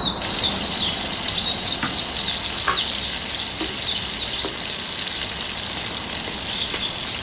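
Sliced chilies, garlic and shallots sizzling in hot oil in a wok, with a steady crackle of spattering oil that is loudest as they go in and eases a little as they are stirred. A wooden spatula scrapes the pan a few times.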